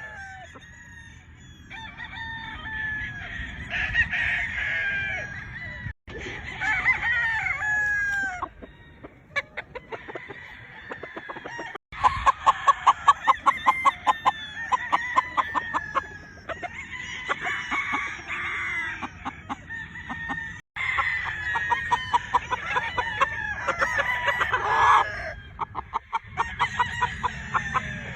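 Chickens calling: roosters crowing and hens clucking, with a quick cackling run about twelve seconds in. The sound breaks off abruptly several times and starts again.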